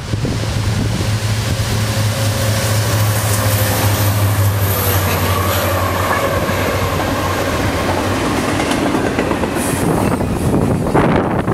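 Diesel-electric freight locomotive passing close by, its engine giving a strong steady low hum. After about seven seconds that gives way to the broad rumble of double-stack container cars rolling past on the rails.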